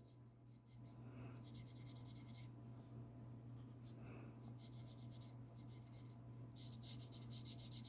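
Faint scratchy strokes of a stiff bristle brush working semi-dry white gouache onto watercolour paper, coming in several short bursts of quick strokes, over a low steady hum.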